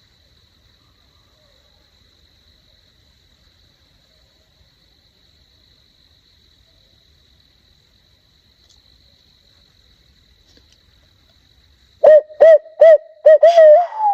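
Hand-blown owl locator call sounding a quick run of about five loud hoots followed by a drawn-out wavering one near the end, in the barred owl 'who cooks for you' rhythm used to make turkeys shock-gobble. Before it, a steady high insect trill is the only sound.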